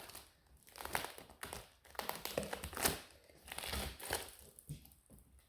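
Thick packing tape and wrapping being pulled off and crinkled, in a run of short rustling bursts with a few taps.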